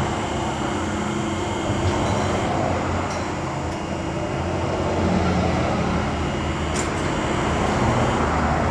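Ram Power Wagon's 392 Hemi V8 running steadily through a custom dual exhaust with an X-pipe and a Borla muffler. The engine note swells slightly about five seconds in.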